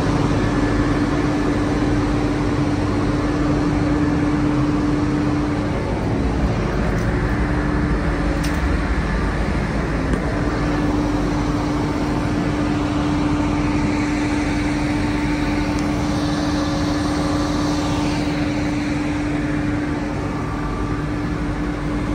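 Ship's deck machinery running: a loud, steady drone with a constant hum that breaks off briefly twice.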